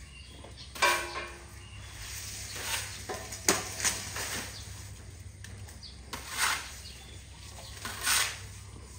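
Elephant feeding: its trunk pulls and crunches cut grass and banana stalks in short rustling bursts, about six of them, over a steady low hum.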